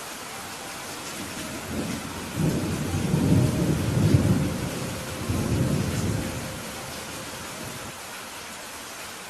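Steady rain with a rolling rumble of thunder that builds about two seconds in, swells twice and dies away by about seven seconds.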